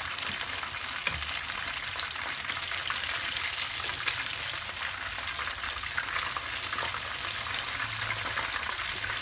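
Masala-marinated chicken pieces shallow-frying in hot oil in a pan: a steady sizzle with many small crackles of spattering oil, while the pieces are turned over with tongs.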